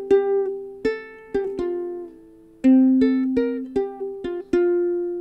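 Solo ukulele playing an instrumental melody in single plucked notes and chords. It ends on a last note, about four and a half seconds in, that is left to ring and fade.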